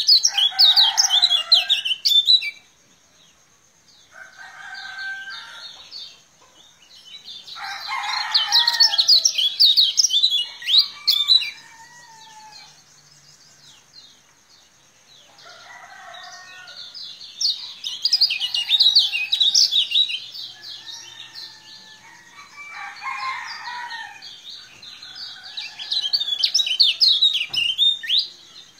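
Caged kecial kuning, the Lombok white-eye, singing in four runs of rapid, high twittering a few seconds each, with quieter, lower calls between the runs. A thin steady high tone sits underneath.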